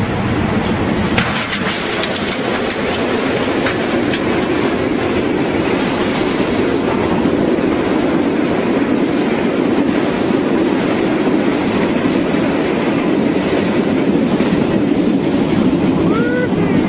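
A train running on its rails: a steady loud rumble of wheels and cars, with a few sharp clicks in the first few seconds.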